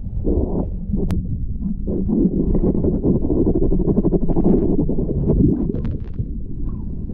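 Muffled, continuous rumble of moving river water heard through an underwater camera, with small scattered clicks and one sharp click about a second in.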